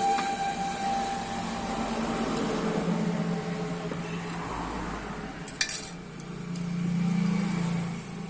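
Metal engine parts and tools clinking and being handled during engine disassembly, with a sharp clink about five and a half seconds in, over a steady low hum that swells twice.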